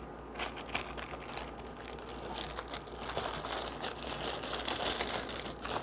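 Clear plastic packaging bag crinkling and rustling as it is handled, a steady run of small irregular crackles.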